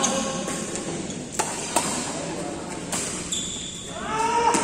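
Badminton rackets hitting a shuttlecock in a rally: a handful of sharp, separate hits, echoing in a large indoor sports hall.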